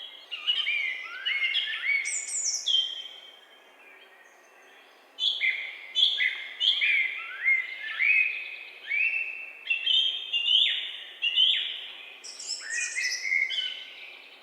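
Several songbirds singing and chirping together in woodland, their short quick notes overlapping; the singing drops away for a moment a few seconds in, then picks up again.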